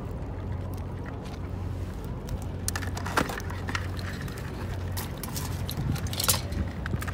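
Coated-wire crab pot rattling and clinking as a gloved hand works inside it among the crabs, a handful of sharp clicks and scrapes, the loudest about three and six seconds in, over a steady low hum.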